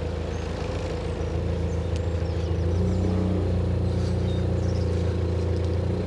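Compact loader's diesel engine running steadily, its note rising a little under three seconds in as the hydraulics take the load of lifting the front of a car on the forks.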